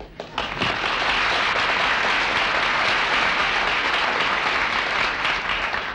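Studio audience applauding: a few first claps swell into steady applause, which cuts off abruptly near the end.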